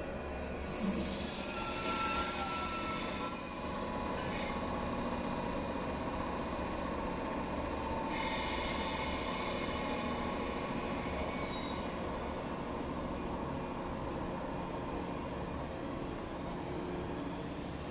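A 485-series train's wheels squeal as it moves slowly along the track, with several high-pitched tones at once. The squeal is loudest in the first few seconds and comes back more faintly about eight seconds in, over a steady low rumble of the rolling cars.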